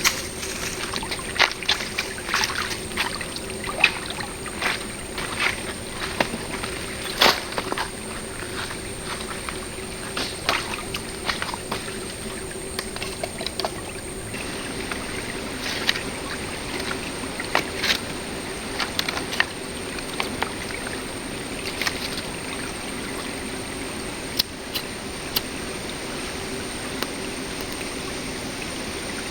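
Shallow river water flowing and trickling steadily, with irregular sharp knocks and clatters through the first twenty seconds or so, then fewer.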